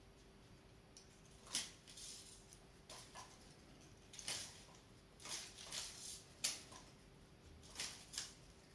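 Artificial leaf-and-berry garland rustling in a series of short, irregular bursts as a cat bats and tugs at it with its paw.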